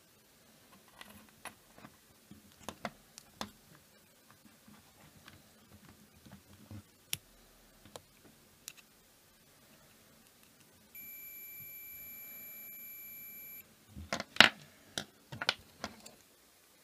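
Digital multimeter's continuity buzzer sounding one steady high beep for about two and a half seconds, signalling continuity between the probe tips. Before it come small clicks of the probes and parts being handled, and after it a quick run of louder knocks and taps as the quadcopter is handled.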